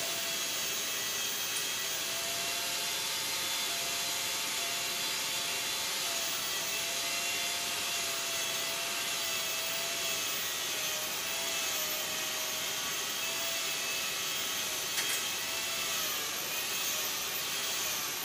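A small motor running steadily: an even hiss with a faint, slightly wavering whine over it, and a light tap near the end.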